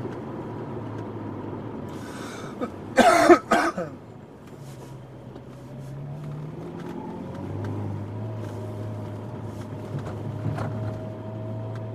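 Ferrari California T's twin-turbo V8 running, heard inside the cabin, with a short loud cough about three seconds in. The engine's pitch then climbs for a few seconds as the car accelerates and falls back to a steady hum.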